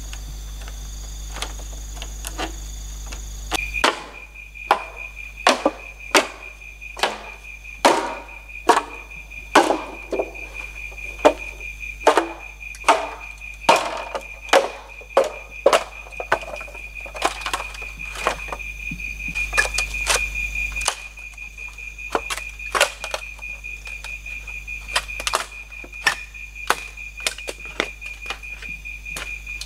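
Machete blade chopping bamboo, sharp strokes a little more than once a second, heavier at first and later lighter and quicker. A steady high insect buzz runs behind the strokes.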